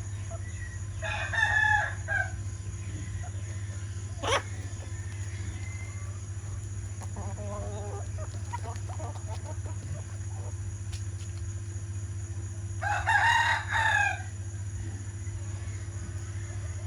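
Domestic chickens: a rooster crows twice, about a second in and again near the end, with hens clucking faintly in between. A single sharp click about four seconds in, over a steady low hum.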